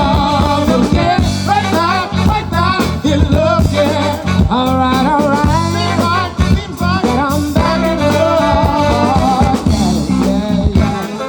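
Live band music: an upbeat soul/funk number with a steady beat and singing over it.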